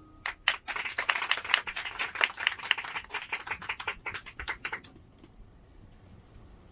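Small audience clapping between songs, a dense patter of claps that thins out and stops about five seconds in.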